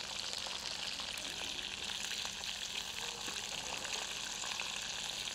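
Partridge pieces and sliced potatoes sizzling in oil in a non-stick frying pan: a steady, even frying hiss.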